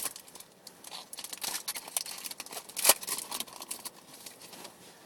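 Trading cards and their packaging being handled: rustling and crinkling with scattered small clicks, one sharper snap about three seconds in.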